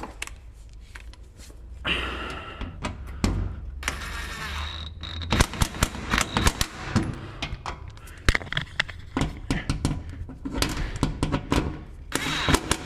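Impact wrench driving bolts into an aluminium engine undertray in short bursts: a motor whirs, then rapid hammering clatters, with sharp metallic clicks and knocks in between.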